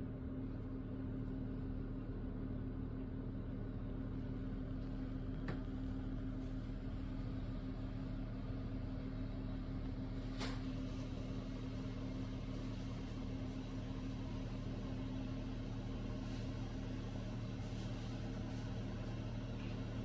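A steady, low mechanical hum with a few fixed low tones, and two faint clicks about five and ten seconds in.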